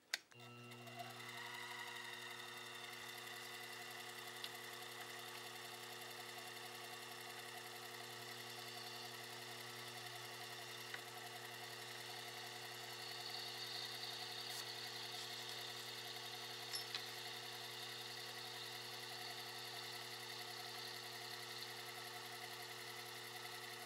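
Small bench lathe motor switched on with a click and running with a steady hum while a brass clock wheel turns in it. A faint higher hiss joins from about halfway through.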